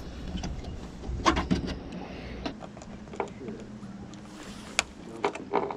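Scattered clicks and light knocks of deck hardware and hand tools being handled as old fittings are unbolted, over a low rumble in the first couple of seconds.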